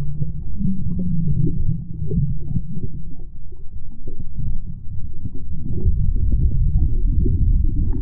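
Muffled underwater rumble and crackle of moving water heard through a submerged GoPro Hero 10 in its housing, growing heavier about five seconds in.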